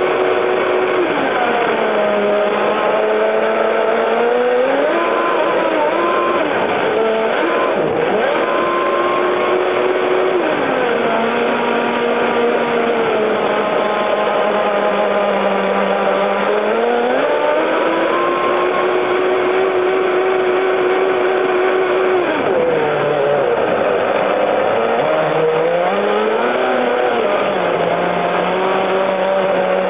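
Electric motor of a radio-controlled catamaran boat whining at speed, heard from on board. Its pitch falls and climbs back several times, over a steady hiss of spray and rushing water.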